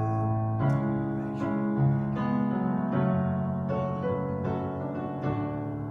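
Piano accompaniment to a slow worship song, playing sustained chords that change about once a second in a pause between sung lines.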